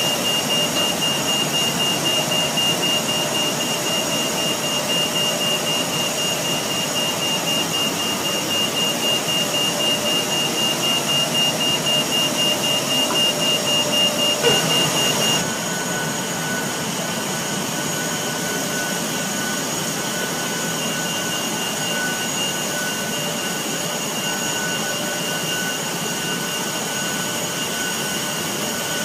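Steady machinery noise as a TBL600 towbarless tractor tows an Airbus A380, with a rapid beeping warning tone over it. The beeping stops about halfway through, leaving a steady tone over the running machinery.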